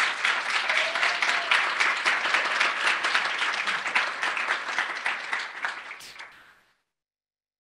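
Audience applauding: many people clapping together, fading out near the end.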